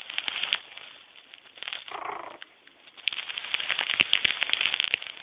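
Small dog walking: quick light clicks and pats of paws and claws, in clusters and densest in the last two seconds, with three sharp clicks near four seconds. About two seconds in, a short soft sound from the dog, a try at a bark.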